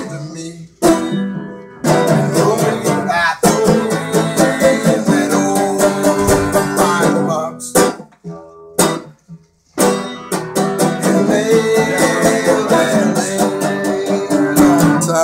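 Homemade banjo built from a snare drum, picked fast and hard in an instrumental run that breaks off briefly a few times before starting up again.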